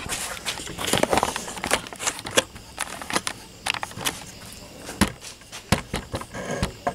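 Irregular clicks and light knocks of handling as the camera is set back onto its stand, with two sharper knocks about five and six seconds in.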